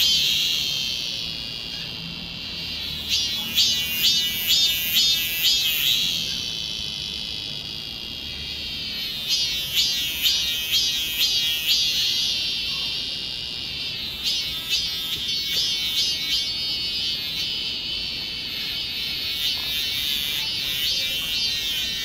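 Cicada singing: a high buzzing song that swells four times into runs of pulses, about two a second, with a steadier drone between the runs.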